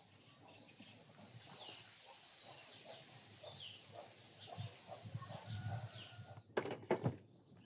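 Small birds chirping in short calls, some with falling notes, over low handling thuds, then a few sharp loud clicks close together near the end.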